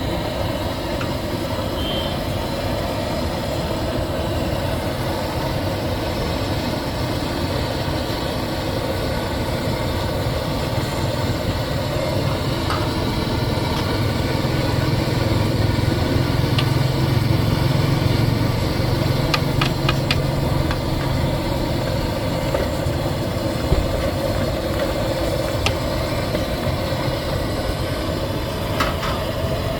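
Steady engine-like drone, swelling a little in the middle, with a few faint clicks over it.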